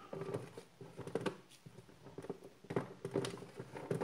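Irregular soft taps, clicks and rustles of play-dough being peeled off a hard plastic bear-shaped container and handled.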